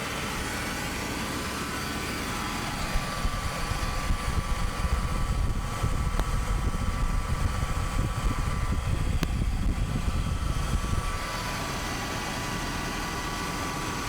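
1999 Chevy pickup's engine idling just after a fresh ignition tune-up, with the distributor not yet tightened and the timing not yet set. The running grows louder and more uneven from about three seconds in until about eleven seconds in, then settles back.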